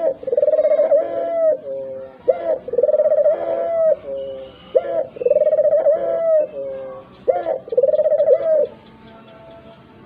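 Puter dove (ringneck dove) cooing: a phrase repeated about every two and a half seconds, each a short note, then a long steady coo and a lower falling tail. Four phrases, stopping about a second before the end.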